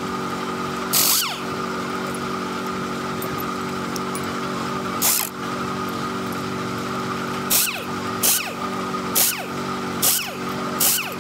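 An impact wrench fired in about seven short bursts on the crankshaft pulley bolt of a Hino truck diesel engine, each burst followed by a falling whine as the tool spins down. A steady machine hum runs underneath.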